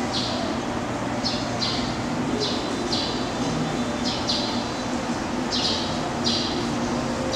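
Birds chirping in short, repeated calls, one or two a second, over a steady low hum.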